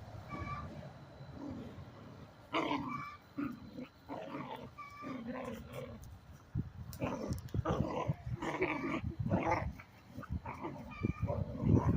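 Two dogs play-fighting: repeated growls and snarls, with scuffling and thumps that grow busier in the second half.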